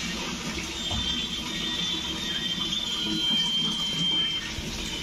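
Battery-powered toy trains running: a small motor hum with a steady high-pitched tone from about a second in, lasting about three seconds.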